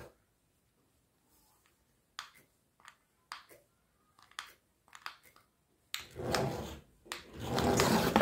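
A few scattered light clicks, then the small DC motor of a cardboard RC car whirring in two short spells, about six seconds in and again near the end, as the car drives off.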